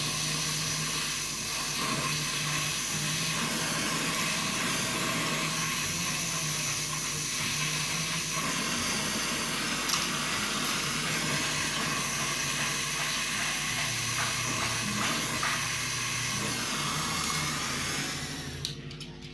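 Gas brazing torch flame hissing steadily while the refrigerator's discharge pipe is brazed; the hiss cuts off near the end as the torch is shut off.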